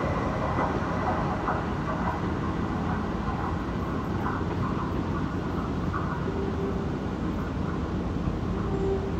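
Metro de Madrid 6000-series electric train running away along the track. It drops in level just as it begins, then carries on as a steady, fading noise.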